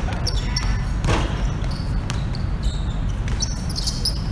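Basketball bouncing on an outdoor hard court, a few separate thuds, the clearest about a second in, over a steady low background rumble.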